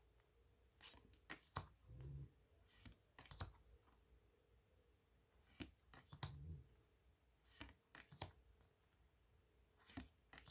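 Faint handling of tarot cards: crisp clicks and snaps of the cardstock as cards are turned and laid one after another, with a few soft low sounds in between.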